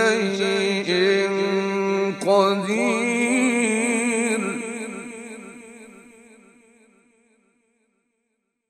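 A man's voice reciting the Quran in the drawn-out, ornamented mujawwad style, holding a long wavering note that breaks briefly about two seconds in. It then slowly dies away to silence after about seven seconds.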